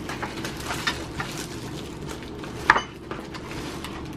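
Thin plastic film crinkling and rustling as it is peeled off a new laptop, with many small crackles and one louder snap about two and a half seconds in.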